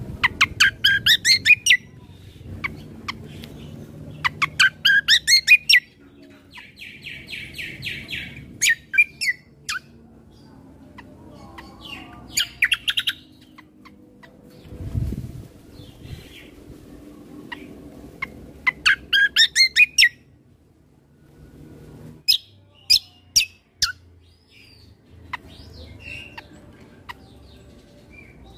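Kecial kombo (cucak kombo) songbird singing in full, free voice ('gacor'): loud bursts of rapid, sharp, high chirps, each lasting about a second and coming every few seconds.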